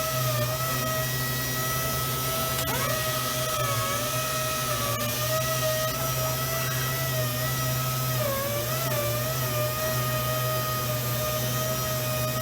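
Powered sander on a robotic furniture-sanding cell running with a steady whine over a hiss and low hum. Its pitch sags briefly a few times, about half a second in, around four seconds in and again around eight to nine seconds in, as the tool loads against the wood.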